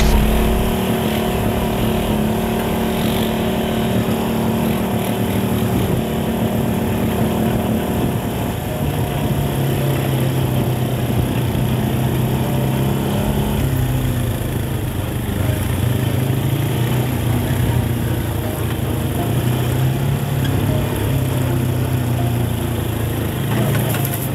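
Off-road buggy engine running steadily as the buggy drives along a dirt track, its pitch shifting a few times.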